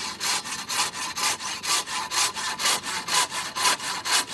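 Hand saw cutting through a log in quick, even back-and-forth strokes, about four a second.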